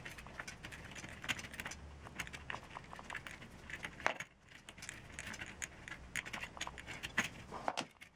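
Light metallic clicking and jingling of bicycle spokes and the valve stem's lock nut and washer being handled and unscrewed at the rim, with one sharper click about four seconds in.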